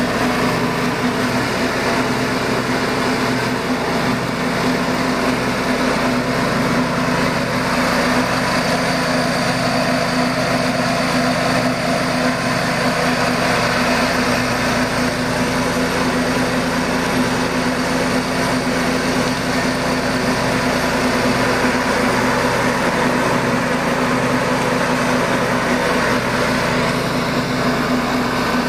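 Cub Cadet 1250 garden tractor's engine running steadily at a constant speed while the tractor is driven across a lawn.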